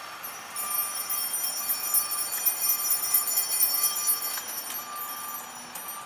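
Vehicle backup alarm beeping at a steady pitch about once a second. Over it, a loud, high, fast-flickering shrill sound comes in about half a second in and eases near the end.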